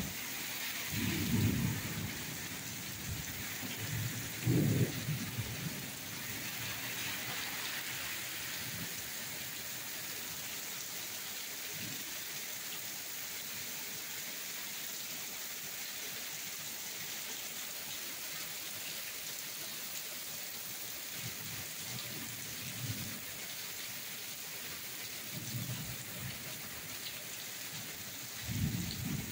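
Heavy rain pouring steadily onto pavement and a wet street, with low rumbles of thunder about a second in and again around four to five seconds in, and fainter rumbles later on.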